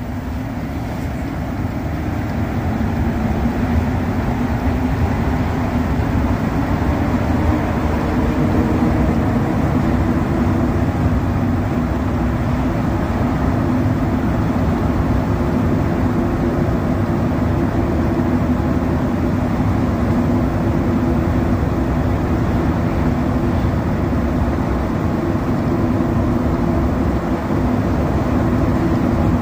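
Montreal Metro AZUR rubber-tyred train heard from inside the car, its whine rising a little in pitch and level as it picks up speed over the first several seconds after leaving the station, then running steadily at speed through the tunnel with a constant rumble.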